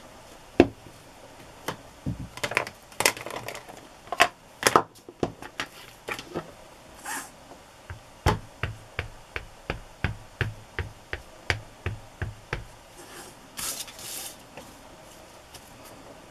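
Sharp taps and clacks of rubber stamps and a clear acrylic stamp block being handled on a craft table. From about halfway through comes a run of quick, even taps, about four a second, lasting four seconds or so.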